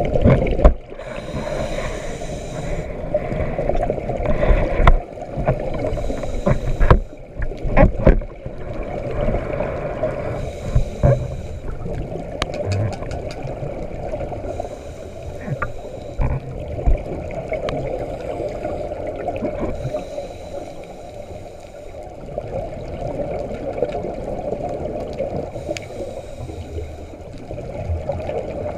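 Underwater sound through a camera housing: a scuba diver breathing on a regulator, with a gurgling rush of exhaled bubbles every few seconds.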